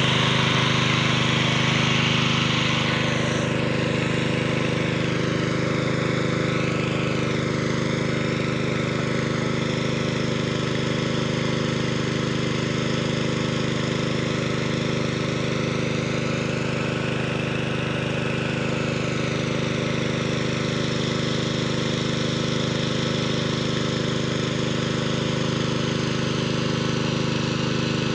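Small petrol-engine water pump running steadily at a constant speed, pumping water through a hose to hand-drill a bore well.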